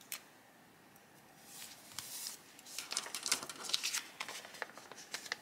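Handling of a paper sticker sheet: a short click at the start, then a few seconds of irregular rustling and light clicks as the sheet is moved and worked with tweezers.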